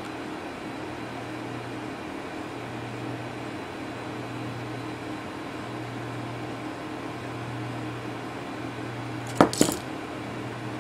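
Steady low electrical hum over hiss, with two sharp clicks close together about nine and a half seconds in.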